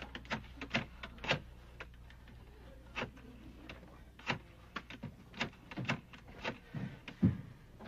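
Footsteps and knocks on a hard stage floor: a dozen or so separate clicks and thumps, about two a second in the middle, with one heavier thump near the end.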